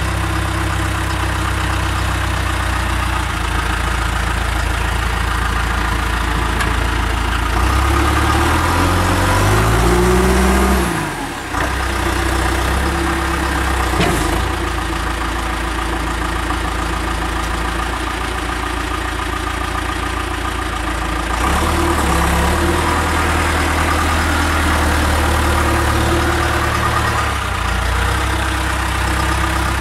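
Backhoe loader's diesel engine running, its pitch rising as it revs up about a third of the way in, then dropping suddenly, with a single sharp click soon after. Later it runs at higher revs again for several seconds before settling back.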